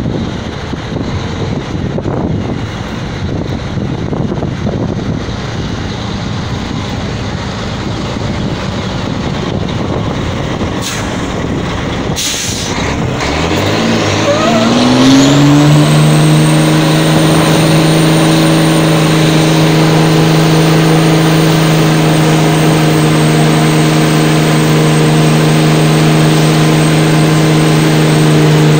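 Diesel drag-racing truck engine revved up over a couple of seconds about halfway through, then held at high, steady revs for a burnout, with a high whistle riding over it. Before that there is a rough wash of distant engine and wind noise.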